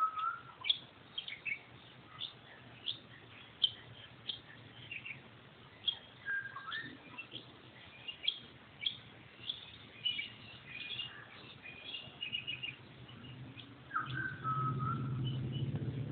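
Several small birds chirping with many short, high calls, and a lower whistled call three times, about six and eight seconds apart. A low steady hum comes up near the end.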